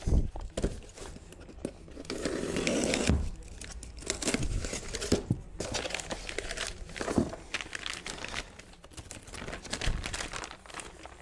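A small cardboard parts box being opened and a part slid out of its plastic wrap: plastic crinkling and rustling, with scattered knocks and scrapes of cardboard. The rustling is loudest about two seconds in.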